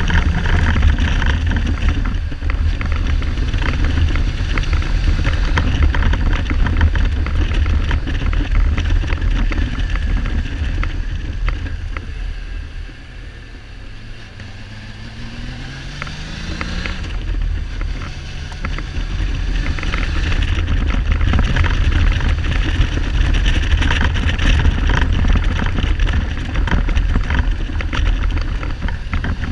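Wind buffeting the microphone of a Kawasaki Z1300 inline-six motorcycle on the move. About halfway through the wind eases and the engine is heard rising in pitch as it pulls away. The bike is misfiring, not running on all cylinders.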